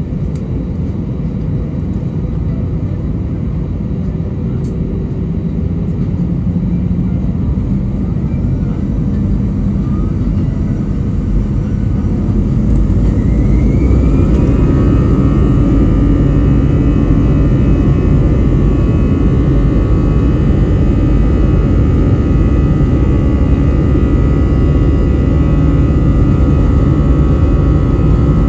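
Airbus A320's jet engines heard from inside the cabin: a steady low rumble, then a rising whine about twelve to fourteen seconds in as the engines spool up for takeoff, after which they run louder with steady high-pitched whines over the rumble.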